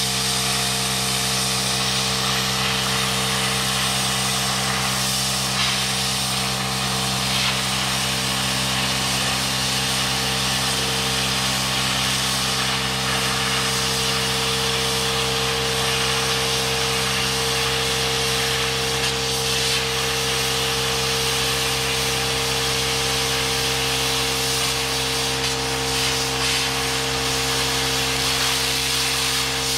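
Hypertherm Powermax30 AIR plasma cutter cutting 1/8 inch steel plate: a continuous, even hiss of the cutting arc and air jet over a constant steady hum.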